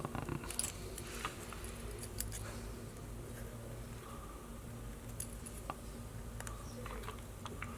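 Scattered small clicks and taps of fishing-reel parts being handled during disassembly, over a low steady hum.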